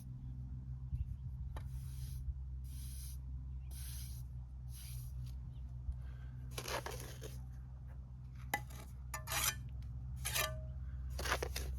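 Steel mason's trowel scraping mortar on cinder block: a string of short scrapes about a second apart, growing louder in the second half, over a steady low hum.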